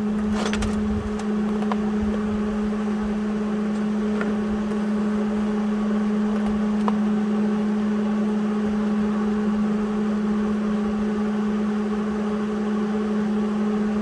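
Steady electrical hum: one low tone with a fainter overtone, unchanging throughout, with a few faint clicks.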